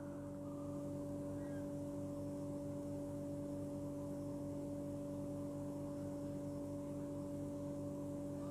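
A faint, steady hum of two clear tones, one an octave above the other, holding level throughout with no clicks or knocks.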